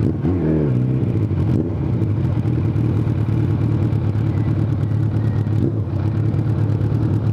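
Suzuki GSX750F's inline-four engine with a full aftermarket exhaust running steadily at low revs.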